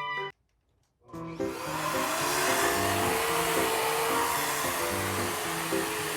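Dyson vacuum cleaner switching on about a second in, its motor noise building within half a second to a loud, steady rush, under background music.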